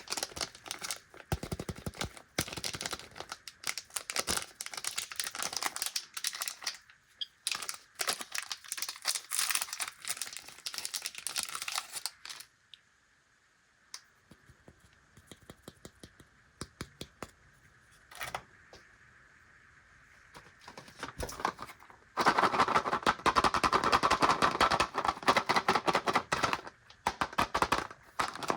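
Plastic snack packaging being handled and opened: crinkling and rustling mixed with quick clicks and taps. A quieter stretch in the middle holds only scattered clicks, then there are about five seconds of loud crinkling near the end.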